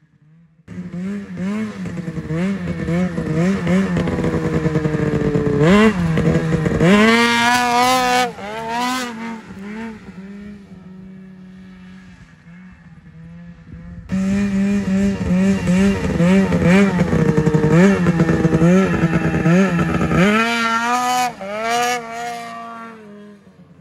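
Ski-Doo 600 RS race snowmobile's two-stroke engine, loud, revved in quick throttle blips and then opened up hard, the pitch climbing and falling as the sled launches across the grass, then fading. About fourteen seconds in it comes back loud with more blips and another hard rev as the sled pulls a wheelie.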